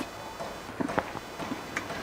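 Faint eating sounds after rasam is slurped from a steel plate: a few soft clicks and smacks, two of them about a second in and another near the end.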